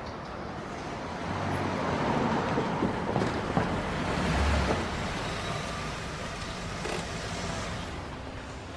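A car driving by on a street amid traffic. Its engine and tyre noise grow louder over the first few seconds, peak about four to five seconds in, then ease off.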